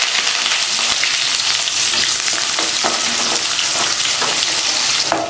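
Sliced onions and curry leaves sizzling steadily in hot oil in a metal kadai, stirred with a wooden spatula that scrapes the pan now and then.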